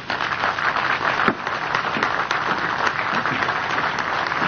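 Crowd applauding steadily: a dense patter of many hands clapping.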